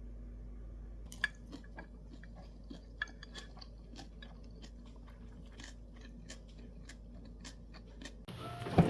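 A person chewing and biting crunchy food close to the microphone, a run of short irregular crunches and clicks. Guitar music starts near the end.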